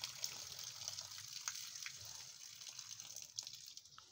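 A cow urinating, its thin stream splashing onto dirt ground: a steady hiss that tapers off toward the end.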